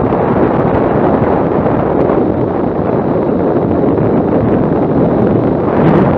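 Wind buffeting the microphone of a motorcycle-mounted camera at riding speed: a loud, steady rush that swells briefly near the end.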